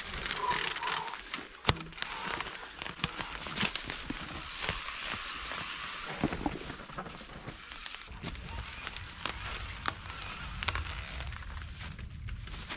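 Dry fallen leaves crackling and rustling under a mountain bike's tyres, with scattered sharp clicks and knocks as the bike is ridden over roots and rocks. A low rumble joins about eight seconds in.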